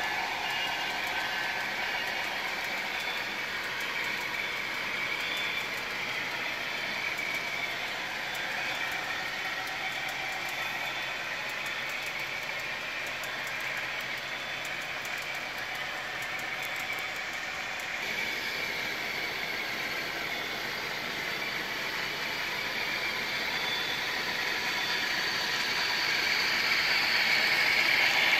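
HO scale model coal hoppers rolling along the track: a steady clatter of small metal wheels on rails, getting louder near the end.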